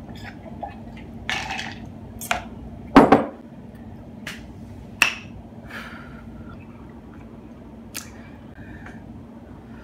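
Eating and drinking mouth noises after a sip through a straw: a short slurp, a few sharp lip smacks and clicks, and a knock of a glass set down on the table about three seconds in, the loudest sound.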